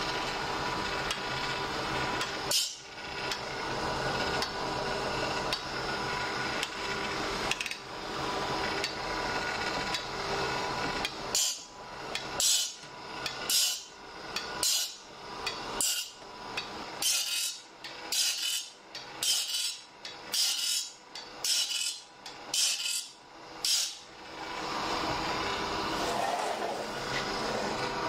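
Saw-sharpening machine running with a steady motor hum, then its grinding wheel working a long straight saw blade tooth by tooth: a rhythmic series of sharp grinding strokes, about one a second, for roughly twelve seconds before only the hum is left again.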